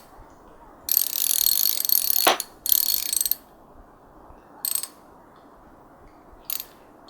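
Ratchet handle of an AIWA 40-piece socket wrench kit being turned in bursts of rapid clicking: a long run about a second in ending in a sharp click, another shortly after, then two brief bursts near the middle and the end.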